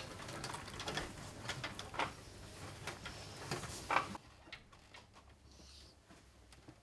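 Cables rustling and plastic connectors clicking as a hard-drive data cable is routed and plugged in inside an open PC case. There is a louder click just before four seconds in. After that only faint handling sounds remain.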